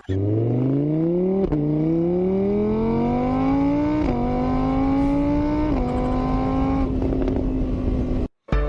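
A motor vehicle engine accelerating through the gears. Its pitch climbs steadily, dips briefly at each of about three gear changes, then holds steady before cutting off suddenly.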